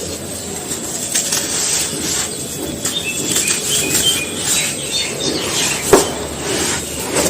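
Dry, grainy material crumbling and crunching in a small tub, a continuous crackly rustle with one sharp snap about six seconds in.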